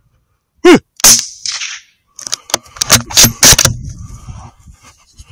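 A short falling call, then a single loud rifle shot about a second in, followed by a run of clicks and knocks as the rifle is handled.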